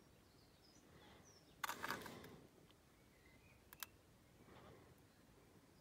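Near silence, with a faint rustle about two seconds in and a short click near the four-second mark.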